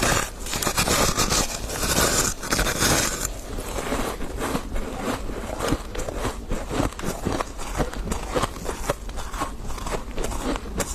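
Person biting and chewing refrozen freezer frost: a dense run of crisp crunching and crackling, heaviest for about the first three seconds and then steadier.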